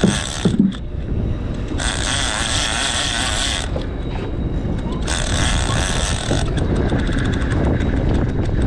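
Twin Yamaha outboard engines running with a steady low rumble while a Shimano Tiagra lever-drag reel whirs in three bursts of one to two seconds as a tuna is fought on the rod.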